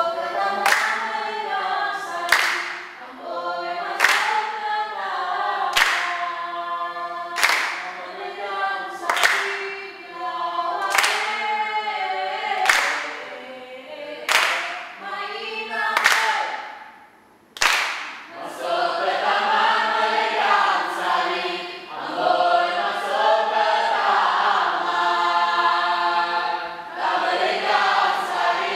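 A mixed group of voices singing a Mek Mulung song in unison, unaccompanied, with a sharp hand clap about every second and a half to two seconds for roughly the first eighteen seconds. After the claps stop, the singing goes on fuller and unbroken.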